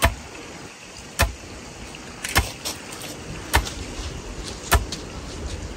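A long wooden pestle pounding into a wooden mortar: a steady rhythm of dull thuds, one about every second and a quarter, five strokes in all, with fainter knocks between them.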